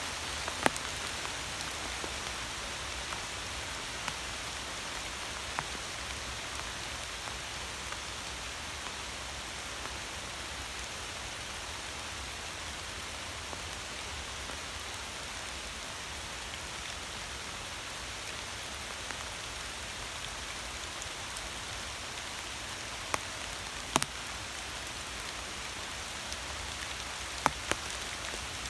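Steady rain falling, an even hiss, with a few sharp louder drop hits, one shortly after the start and two near the end.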